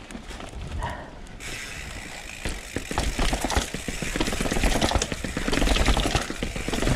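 Mountain bike being ridden fast: tyre noise with the chain and frame rattling over the ground, and wind buffeting the helmet or chest camera's microphone. It picks up suddenly about a second and a half in and grows louder as the speed rises.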